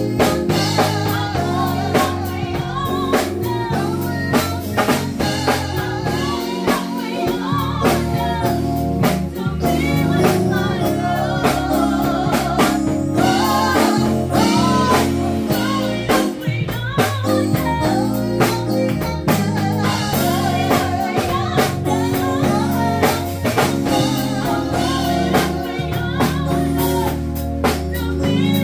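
Live band playing: two women singing together over a drum kit and keyboard, with steady low bass notes and regular drum hits throughout.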